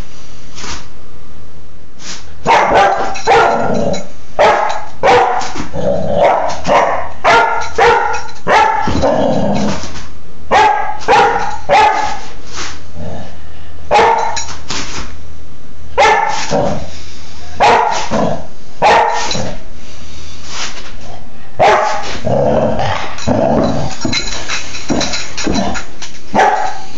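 Four-and-a-half-month-old Doberman pinscher puppy barking over and over in a play bow, a sign that she wants to play. The barks are short and sharp, coming about one or two a second from about two seconds in, with a few brief pauses.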